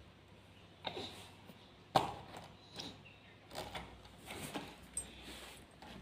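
A baby handling a plastic toy truck on a floor mat: a handful of scattered knocks and bumps, the loudest about two seconds in.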